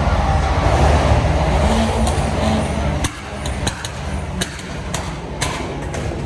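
A motor vehicle's engine running with a deep low rumble that drops off suddenly about three seconds in, followed by a string of sharp cracks over the next few seconds.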